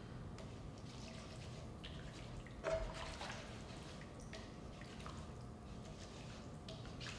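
A utensil stirring a thick, creamy sauce in an electric skillet: faint wet squelches and soft scrapes, with one louder clunk against the pan a little under three seconds in.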